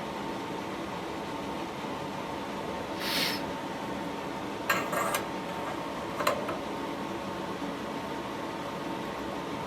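Steady background hum of workshop machinery with a constant whine, a short hiss about three seconds in, and a few light clicks and taps a little later.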